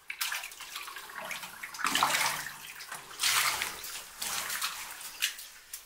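A cut block of soft, wet stone scraping and sliding over the quarry floor as it is shifted by hand, in a few separate wet-sounding scrapes.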